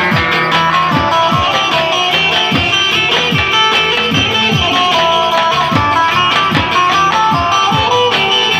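Loud Turkish folk dance music: a fast plucked-string melody over repeated drum beats, roughly two a second, each with a falling low boom.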